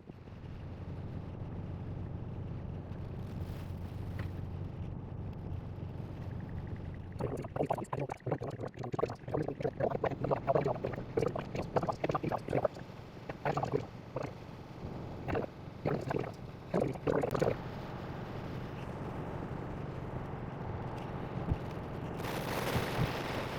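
Hail and rain pattering on a Tesla's roof and windshield, heard inside the cabin over a steady low road hum. The hits come thick for about ten seconds in the middle, and a louder rush of hiss swells near the end.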